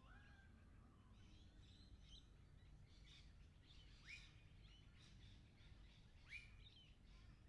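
Faint flock of lorikeets calling: a steady chatter of short high chirps, with two louder upward-swooping calls about four and six seconds in, over a low background rumble.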